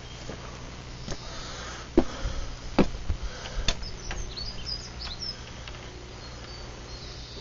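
A few sharp knocks and clicks about a second apart as a front door is unlocked and opened. A small bird chirps a few times just after them.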